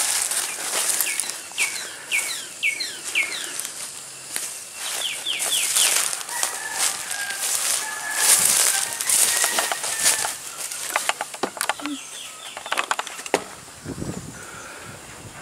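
Footsteps rustling and crunching through dry leaves and weeds, irregular and close. A bird calls in the background in short runs of quick chirps, several times.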